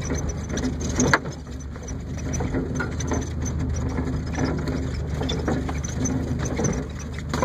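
Subaru Impreza's flat-four engine running at low speed, heard inside the cabin, with the car's body and interior rattling and clunking as it goes over a rough dirt trail. There is a sharp knock about a second in.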